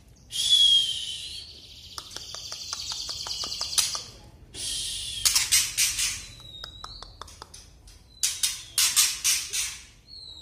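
Juvenile male white-rumped shama giving its harsh rattling 'kretekan' call: several loud, scratchy bursts separated by runs of ticking clicks, with a few short, thin whistles in between.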